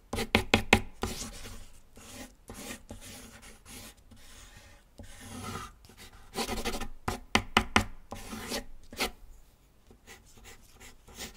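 Pencil scratching on paper in short, quick strokes, coming in clusters: a fast run near the start, lighter strokes through the middle, and another burst about two-thirds of the way in, then only faint strokes near the end.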